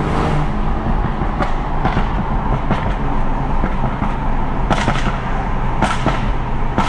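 A tuned BMW M135i's turbocharged six-cylinder engine runs under throttle, heard from inside the cabin. Its exhaust pops several times ("pop and bang"), set off by working the accelerator.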